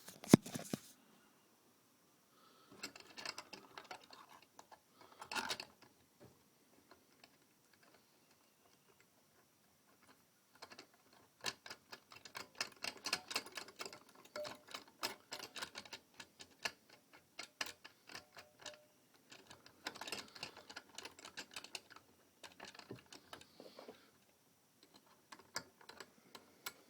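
Hands fitting a homemade indexer onto a sawmill bandsaw blade: bursts of rapid clicking and tapping with quiet gaps between, and a single sharp knock right at the start.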